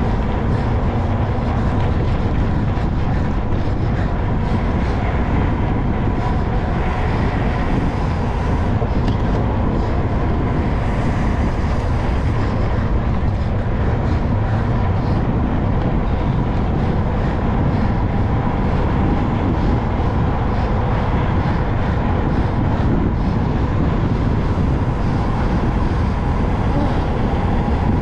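Steady wind rush buffeting the microphone of a camera carried on a bicycle riding fast on asphalt, with faint steady hum from the tyres and drivetrain under it.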